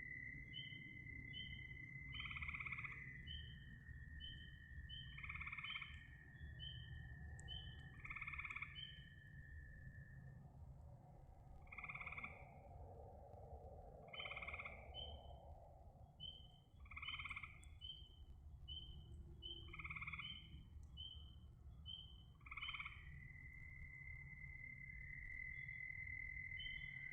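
Frogs calling: a short call repeated about every three seconds, over a steady high trill and a run of rapid small chirps, with a low rumbling noise beneath.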